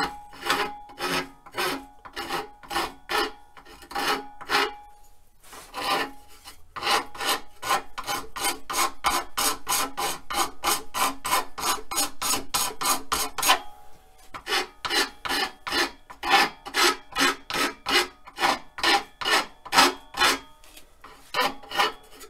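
A hand file rasping back and forth across the end of a wooden dowel held in a vise, rounding off the edge of a drumstick's tip. The strokes keep a steady rhythm of about two or three a second, with brief pauses about five and fourteen seconds in.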